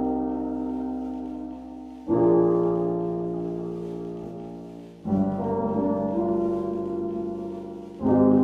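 Lo-fi music: slow, sustained chords with no beat, a new chord struck about every three seconds and fading away before the next.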